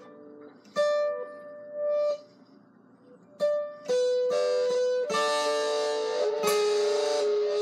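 Acoustic guitar played: a few single plucked notes ringing out, then strummed chords from about five seconds in.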